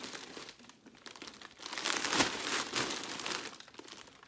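Large plastic shipping bag stuffed with clothes crinkling and rustling as it is swung up and handled, loudest in the middle and dying away near the end.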